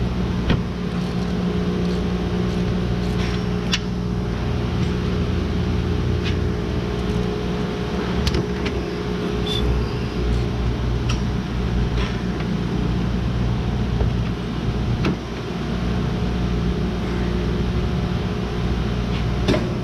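Steady mechanical hum with a low drone, with a few scattered sharp clicks and taps of hand tools on metal as the oil pump's bolts are worked on.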